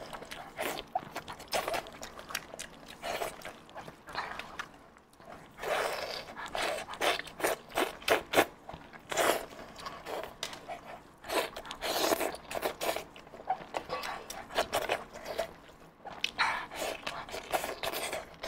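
Close-miked eating sounds: meat from a braised lamb head being torn and chewed, with wet mouth clicks and lip smacking in irregular bursts.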